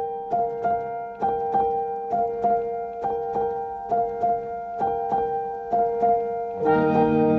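Background piano music: a gentle melody of held notes struck in a repeating pattern, a few notes a second. Near the end a fuller chord with lower notes comes in.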